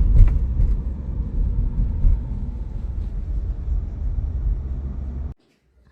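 Low, steady rumble of a moving vehicle heard from inside it, cutting off abruptly about five seconds in.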